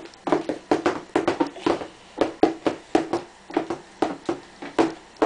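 A baby's hand slapping a plastic high-chair tray in a quick rhythmic run, about three to four short slaps a second in loose groups, each with a brief hollow ring.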